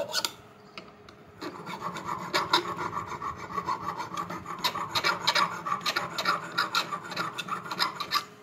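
Flat metal file rasping back and forth across the damaged contact points of a voltage stabilizer relay, cleaning them to bright metal. After a short pause about a second in, the strokes come quickly and steadily, then stop just before the end.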